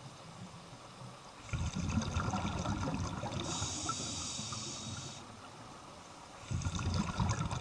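Scuba diver breathing through a regulator underwater: a long exhale of bubbles rumbling and gurgling, a steady hiss of the next inhale, then bubbles again near the end.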